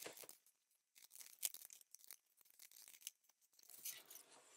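Near silence with faint, scattered handling scrapes and light clicks, a little louder about a second and a half in and again near four seconds.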